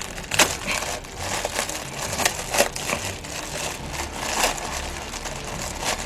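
Packaging being handled and unwrapped: irregular crinkling and crackling of paper or plastic wrapping, with a few sharper crackles.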